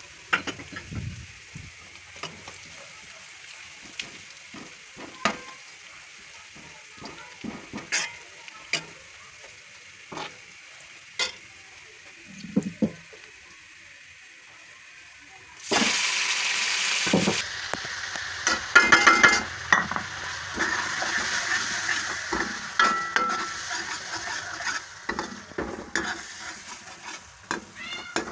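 Sliced onions and cumin seeds frying in oil in a wok, with a quiet sizzle and a steel ladle clinking and scraping against the pan. About halfway through the sizzling turns much louder and denser, as tomatoes and spices fry in the hot oil, and the ladle keeps knocking and scraping.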